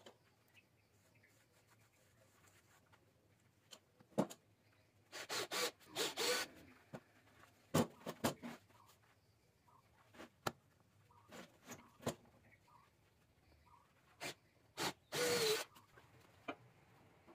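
Hands handling and shifting a heavy section of jackfruit log: scattered knocks and clicks of wood, with longer rubbing scrapes about five to six seconds in and again about fifteen seconds in.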